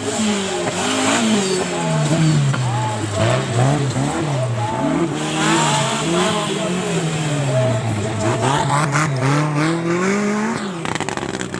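Off-road 4x4 engine revving hard and easing off over and over, its pitch rising and falling every second or two as it works through a course obstacle, with a quick run of clattering knocks near the end.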